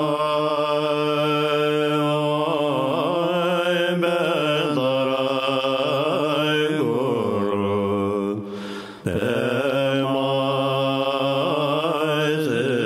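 A mantra chanted in a slow, melodic line over a steady low drone, breaking off briefly for a breath about eight and a half seconds in before it resumes.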